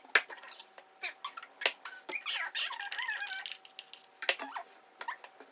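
Stirring a drink in a plastic cup with a thin stirrer: irregular clicks and knocks of the stirrer against the cup, with a wavering squeak about two seconds in.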